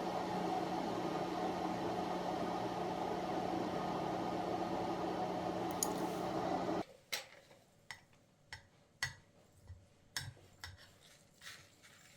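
A kitchen appliance motor runs with a steady hum and stops suddenly about seven seconds in. About eight light knocks and clicks follow, like dishes or utensils being handled.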